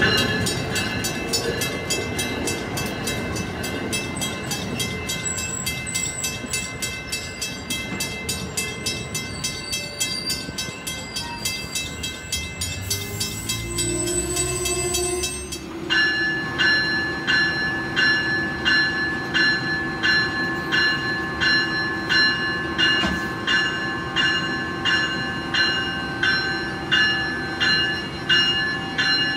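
Amtrak passenger coaches rolling past, their wheels clicking rhythmically over the rail joints. About halfway through the sound changes to a bell ringing steadily close by, with a little over one stroke a second.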